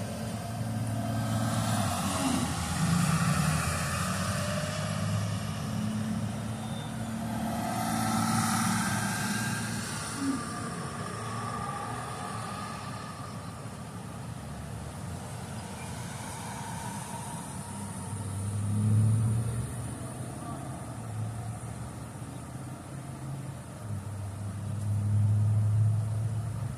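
Road traffic: several cars pass one after another, each swelling and fading. The loudest passes come about two-thirds of the way in and near the end.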